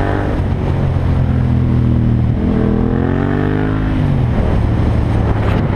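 Motorcycle engine running steadily under way. Its pitch climbs for about a second and a half in the middle, then drops sharply about four seconds in.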